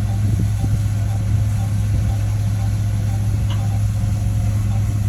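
Heavy diesel engine of an earthmoving machine running steadily at idle, a deep even hum with a faint regular ticking over it.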